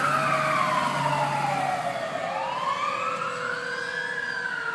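Fire truck siren wailing, its pitch sliding slowly down over about two seconds, then rising and falling again.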